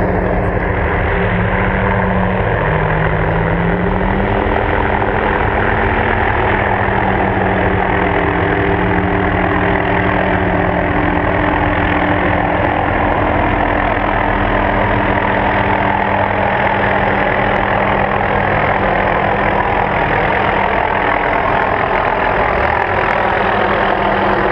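An engine idling steadily close by, its pitch drifting slightly up and down.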